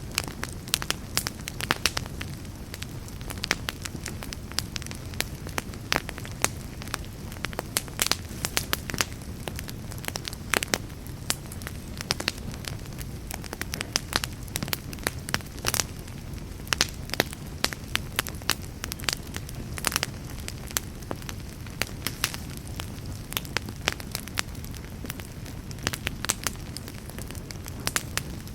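Fireplace fire crackling and popping: many sharp pops, several a second, over a steady low rumble of the flames.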